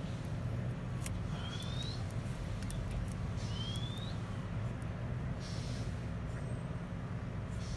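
Steady low mechanical hum, like a distant engine, with two short rising whistled chirps about two seconds apart early on. There is light crinkling of a small plastic bag being pressed by fingers around the middle and near the end.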